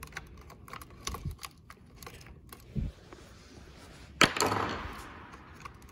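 Small scattered clicks and taps of a screwdriver and wire terminals being worked on a stair climber's toggle switch. A little past four seconds there is a sharp knock, followed by about a second of rustling handling noise.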